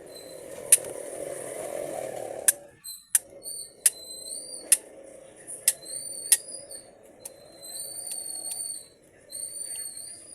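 Sharp metallic clicks and clinks, about a dozen spread unevenly, as small parts of an automatic transmission valve body are handled. Short high arching chirps repeat in the background.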